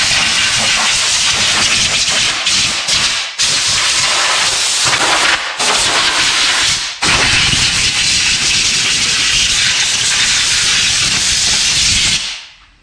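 Pressurised spray hissing loudly in several long bursts, cleaning out the wheel hub mounting area; the last and longest burst runs about five seconds before stopping.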